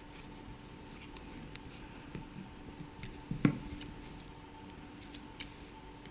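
Small clicks and light knocks of hand handling: a needle and thread being worked through glass-bead crochet and a pair of pliers being picked up, with one louder knock about three and a half seconds in. A faint steady hum runs underneath.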